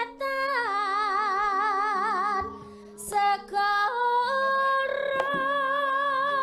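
A woman singing a slow melody into a microphone, with wide vibrato on her held notes. She breaks off briefly about two and a half seconds in, then comes back in on a long, steady held note.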